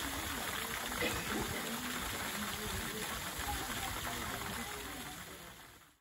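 Fountain jets spraying and splashing steadily into a swimming pool, a constant rush of water that fades out near the end.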